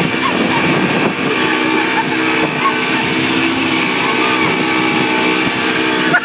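Mercury 125 outboard motor running steadily at towing speed, over the rush and hiss of the boat's churning wake.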